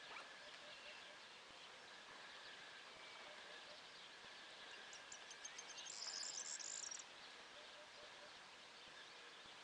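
Faint countryside ambience with distant birdsong. About five seconds in, a high, rapid ticking builds into a dry buzzing trill for about two seconds, like a grasshopper or bush-cricket stridulating.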